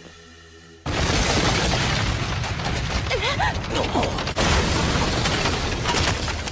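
Animated fight sound effect of ground shattering. A sudden loud rush of crashing, crumbling noise begins about a second in and goes on without a break. A brief wavering cry breaks through it around the middle.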